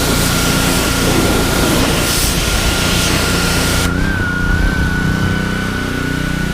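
Gas-engine pressure washer running, its spray hissing steadily; about four seconds in the spray stops while the engine keeps running.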